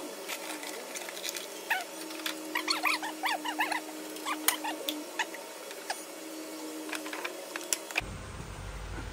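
Irregular light metallic clicks and taps of hand tools and parts being worked on a transmission, with a cluster of short high squeaks about two to four seconds in.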